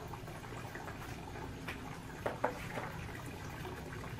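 Steady low hiss and hum with a few faint clicks about halfway through.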